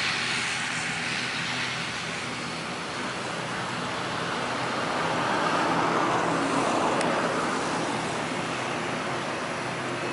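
ATR 72 turboprop's engines and propellers running as the airliner rolls along the runway: a steady low drone with a propeller hum that grows louder about halfway through, then eases off.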